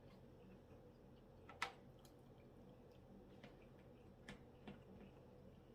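Faint wet mouth clicks and smacks of someone chewing tender ribs, close to the microphone, with one sharper click about a second and a half in.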